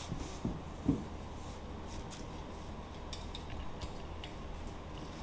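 Steady low workshop room tone with two soft knocks in the first second and a few faint light clicks later on, from a worker handling a wooden cabinet by hand.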